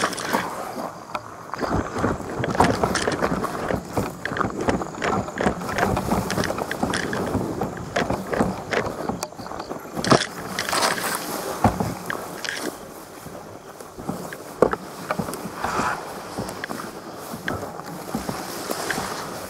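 Continuous irregular rustling and crackling of handling noise, with wind buffeting the microphone and a couple of sharper knocks partway through.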